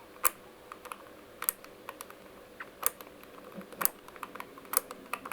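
Dial of a Master combination padlock being turned lightly by hand, giving small irregular clicks while it is felt for the numbers where it sits loose, to decode the combination.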